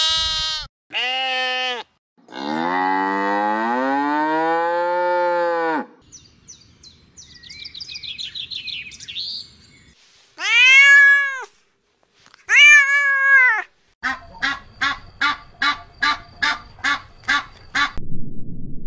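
A calf mooing: two short calls, then one long drawn-out moo. Then a cat meows twice, followed by a rapid series of short repeated calls, about two or three a second; a low steady rush sets in near the end.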